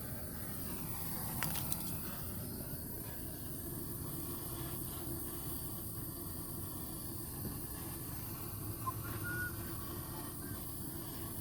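Gas torch burning with a steady rushing hiss, preheating the cast differential so it is not welded cold.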